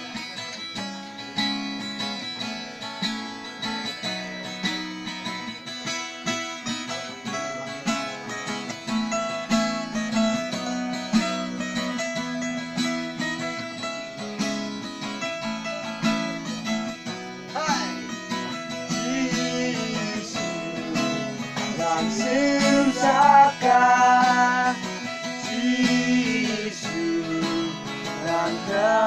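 Acoustic guitar strummed in steady chords that change every second or so. About two-thirds of the way through, a voice starts singing along over it.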